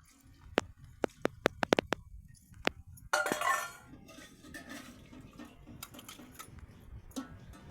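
Sharp clinks and knocks of small hard objects, about eight in the first three seconds, then a short rush of noise about three seconds in, followed by faint uneven clattering.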